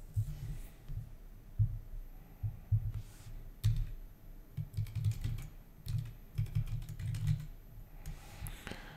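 Typing on a computer keyboard: a run of irregular keystrokes with short pauses between bursts.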